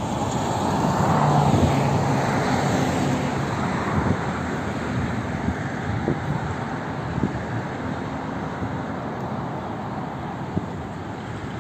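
Jet engine noise of an Antonov An-72 on landing approach: a steady rushing rumble that swells in the first two seconds with a falling whine, then slowly fades. A few short wind knocks on the microphone.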